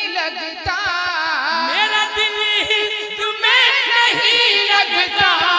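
Men singing a naat, an Urdu devotional song, into microphones in long melismatic lines with wavering pitch, over low drum beats. The singing grows louder about three and a half seconds in.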